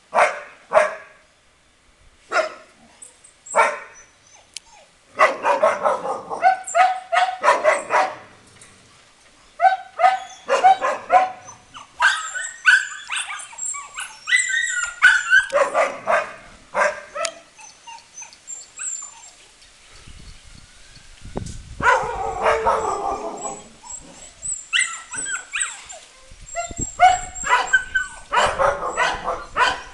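A pack of dogs barking and yipping together in overlapping bursts of quick barks, with high yips among them and short lulls between bursts, the longest lull about two-thirds of the way through.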